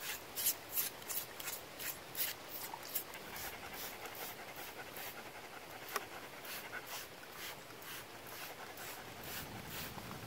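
Greyhound panting in quick, regular breaths, about three a second.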